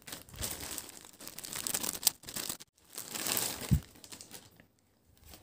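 Clear plastic polybag crinkling and rustling as it is opened by hand and a folded T-shirt is pulled out, with a soft thump about three and a half seconds in; the rustling stops about four seconds in.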